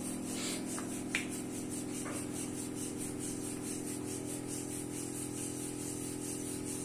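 Wooden rolling pin rolling out soft paratha dough on a round board: soft rubbing strokes with a few light taps, over a steady background hum.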